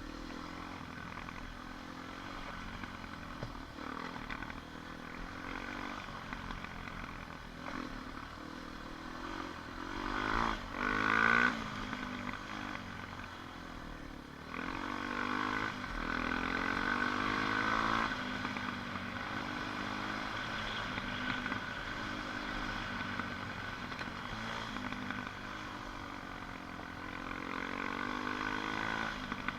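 ATV engine running on a trail ride, its pitch rising and falling again and again as it is throttled up and eased off. It is loudest about ten to twelve seconds in and again from about fifteen to eighteen seconds.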